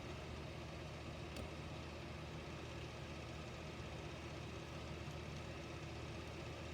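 Faint steady low hum of background noise, with a single light click about a second and a half in.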